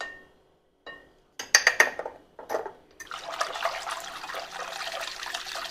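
A few ringing glassy clinks about a second and a half in, then from about three seconds a wire balloon whisk stirring sugar into warm water in a glass bowl: a steady watery swishing with light clinks of the wires on the glass as the sugar dissolves.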